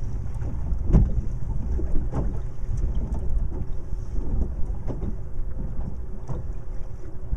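Wind buffeting the microphone with a steady low rumble, and choppy waves slapping against a small boat's hull about once a second.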